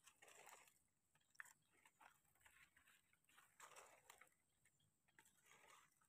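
Faint rustling and soft crunching of dry leaf litter, several short crunches a second or so apart with one sharp click, as hands pick wild mushrooms from the forest floor.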